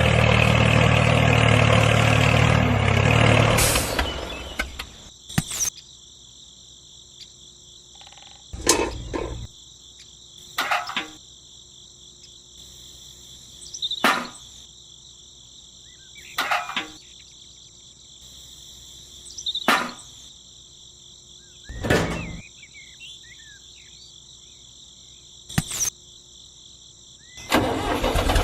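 A small engine on a miniature DIY tractor runs loudly, stops about four seconds in, and starts running again near the end. In between there is a steady high-pitched buzz and a faint hum, with short knocks or thuds every two to three seconds.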